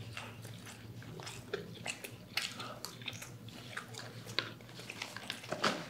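Close-up eating sounds: chewing and biting on fried chicken nuggets, with irregular small crunches and mouth clicks. A few sharper crunches come about two and a half seconds in, about four and a half seconds in, and near the end.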